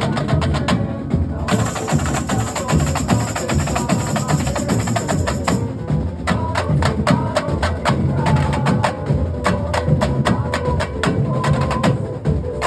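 Carnival comparsa drum line (batería) playing together: a dense, driving rhythm of sharp stick strikes over deep drums. A high hiss joins about a second and a half in and drops out near the six-second mark.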